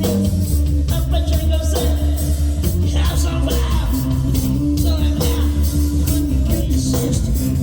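Live rock band playing loud: a heavy bass line and steady drum hits, with electric guitar and some singing.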